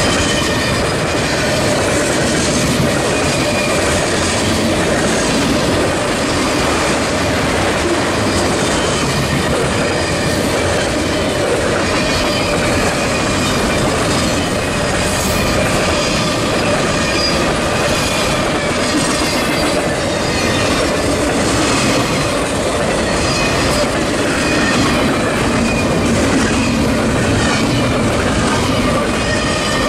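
Freight cars of a passing mixed freight train rolling by close at hand: steel wheels clatter over the rail joints with a high, steady wheel squeal over a continuous rumble.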